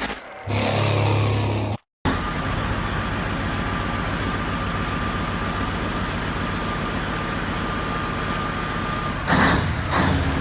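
A truck engine running steadily, with a thin steady whine over it. A short noisy burst comes near the end. It follows a brief cut to silence about two seconds in.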